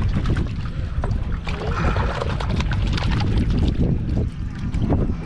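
Wind buffeting the microphone, a steady low rumble, with water sloshing around a small fishing boat and scattered light clicks.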